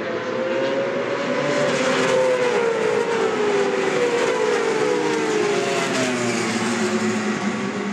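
Several racing motorcycle engines at high revs, their notes falling in pitch one after another. The sound is loudest about two seconds in.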